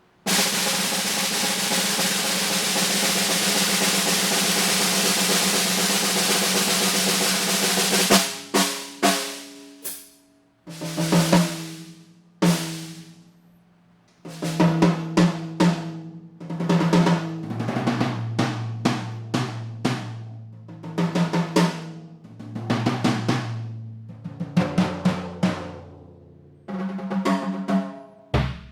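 Yamaha Stage Custom Birch drum kit: a steady snare roll for about eight seconds, then separate strokes and fills around the kit. The toms ring at several pitches from high to low, with bass drum strokes among them.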